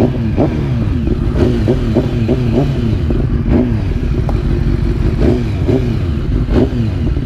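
Motorcycle engine running with its throttle blipped over and over: more than a dozen short revs, each jumping up sharply and falling away, over a steady low engine note.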